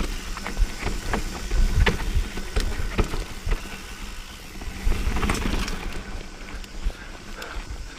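Mountain bike rolling over a dirt trail: a fluctuating low rumble, with scattered sharp clicks and knocks from the tyres hitting rocks and the bike rattling.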